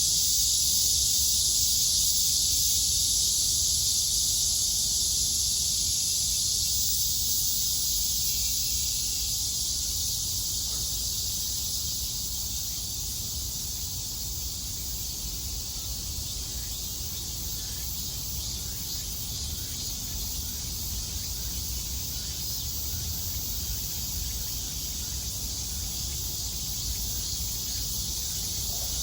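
Cicadas buzzing in a dense, steady chorus, with a low rumble underneath.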